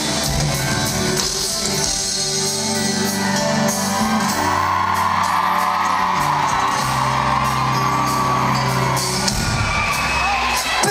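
Live pop music from a band playing through a concert hall's PA, recorded from within the audience. Fans scream and whoop over the music for several seconds in the middle.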